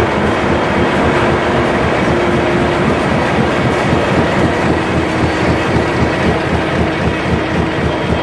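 High-speed corrugated carton flexo printer-slotter-die-cutter with a lead-edge feeder running in production, feeding corrugated board sheets. It makes a loud, steady machine clatter with a rapid even beat, about four a second, over a constant hum.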